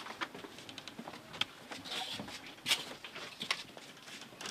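Footsteps with scattered light knocks and clicks, irregular rather than an even stride.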